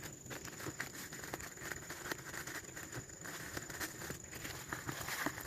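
Close-up eating noises over a bowl of mie ayam (chicken noodles): a quick, irregular run of small clicks, smacks and crackles.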